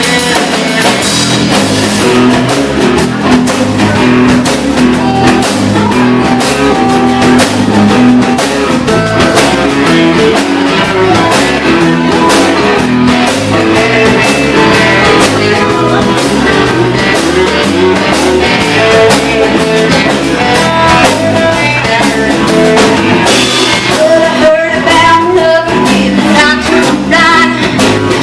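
Rock music with guitar and a drum kit playing a steady beat.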